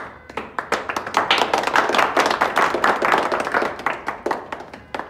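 A small group of people clapping their hands. The clapping thickens about a second in and thins out near the end.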